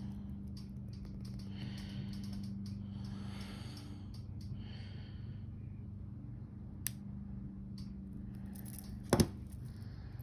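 Small metal jewellery tools being handled over a steady low hum: faint soft rustles early on, a light click about seven seconds in, and a louder sharp click near the end as the pliers work the jump rings.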